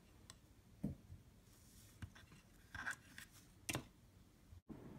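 Faint, scattered clicks and taps of a 3D-printed plastic part being handled, about four small knocks in all.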